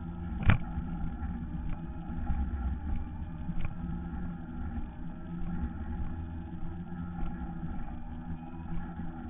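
A Segway riding along a paved path: a steady low rumble of its wheels on the concrete with the even hum of its electric drive. A single sharp knock sounds about half a second in.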